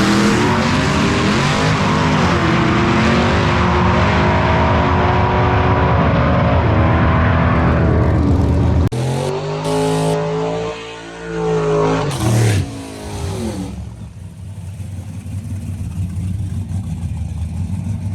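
Race car engine at full throttle, its pitch climbing and dropping back in steps as it is shifted through the gears. About nine seconds in it drops away sharply, and a quieter engine rises and falls in pitch, as a car does when it passes by. It then settles to a lower, steadier running sound.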